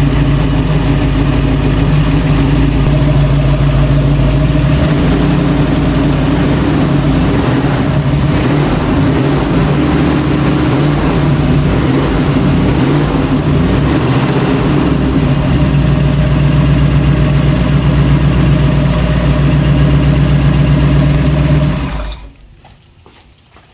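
The freshly restored 1966 Ford Bronco's engine running on its first start behind its transmission. It idles, its speed wavers unevenly for several seconds in the middle, then it settles back to a steady idle. It is shut off suddenly about 22 seconds in.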